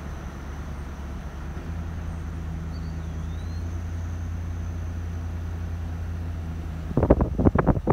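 Steady low drone of engine and road noise from a car driving along a road. About seven seconds in, a quick run of sharp knocks, several within about a second, rises above the drone.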